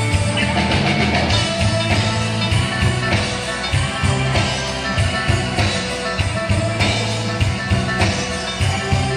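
A live country band playing an instrumental stretch of a song: electric guitar over bass and a drum kit with a steady beat.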